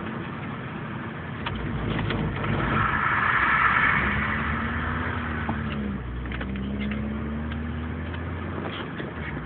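Car engine heard from inside the cabin while driving hard, its pitch climbing, dropping sharply about six seconds in at a gear change, then climbing again. A louder rushing noise swells for a second or two around three to four seconds in.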